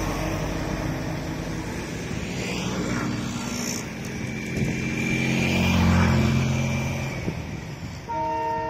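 Motor-vehicle noise with two passing swells, each rising then falling in pitch. About eight seconds in, a horn starts sounding: a steady chord of several pitches.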